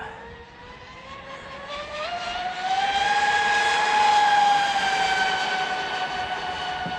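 High-pitched whine of an RC boat's electric motor and propeller on a wide-open-throttle run. The pitch climbs about two seconds in, holds steady and loud, then sinks and cuts off at the end as the throttle is released.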